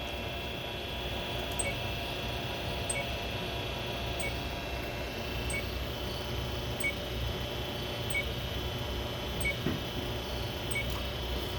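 Cutera Limelight HP light-based treatment system, rebuilt and under test, giving a short high beep with a faint click about every 1.3 seconds, eight times, over a steady electrical hum.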